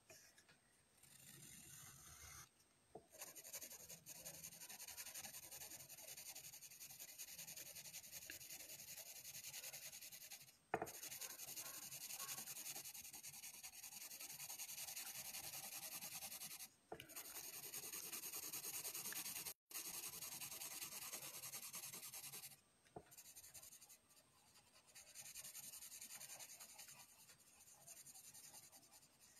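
Graphite pencil scratching faintly on drawing paper in quick back-and-forth shading strokes, stopping briefly now and then as the pencil lifts. There is one sharp tap about eleven seconds in.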